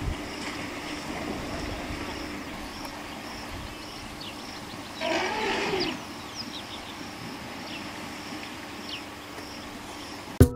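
Waterhole ambience: steady outdoor noise with a low hum and faint bird chirps. An African elephant's call of about a second, rising and falling in pitch, comes about halfway through. Music starts right at the end.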